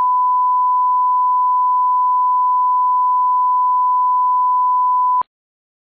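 Test-card reference tone: a single steady pure beep at 1 kHz, the tone that goes with SMPTE colour bars. It cuts off suddenly about five seconds in.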